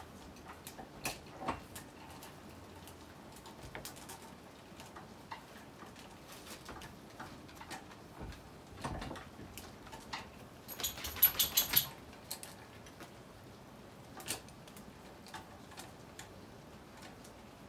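Small metal clicks and knocks as the bar and chain of a Coocheer 62cc chainsaw are handled and fitted, with a quick run of sharp clicking a little past the middle.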